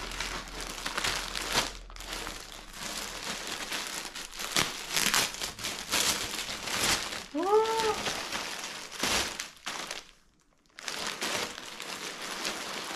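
Clear plastic packaging bag crinkling and rustling as it is handled and opened, with a brief pause about three-quarters of the way through.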